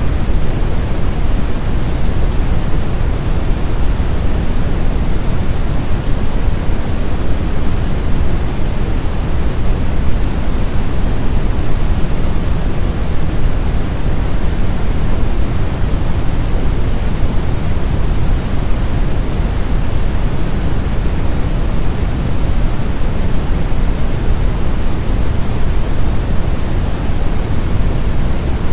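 Steady, deep brown noise: a continuous rumbling hiss, heaviest in the bass and thinning toward the treble, with no changes or breaks.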